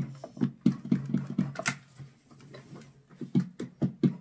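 Handling noise from a Philips Airfryer XXL being opened: a quick run of dull plastic knocks and clicks, with a sharper click about one and a half seconds in and more knocks near the end.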